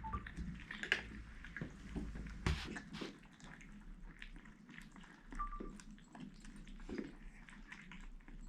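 Kittens eating wet food: irregular small wet smacking and clicking sounds.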